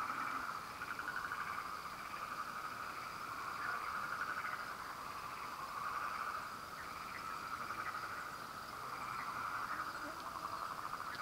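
A chorus of frogs trilling: many fast, pulsed calls overlap into one continuous sound that swells and fades every couple of seconds.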